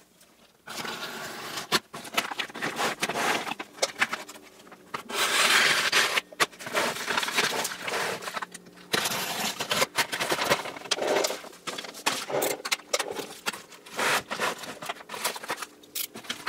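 Paper and plastic-film wrapping crinkling and tearing as it is cut and pulled off a plastic storage tote, in irregular bursts with scraping sounds.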